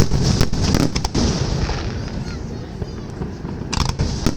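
Festive fireworks salute: several sharp bangs of shells bursting in the first second, a continuous low rumble of distant echoing booms, and another quick burst of reports near the end.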